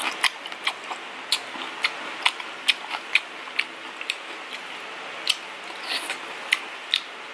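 Close-up crunching and chewing of crispy deep-fried street food: a string of sharp, irregular crackles, about two a second.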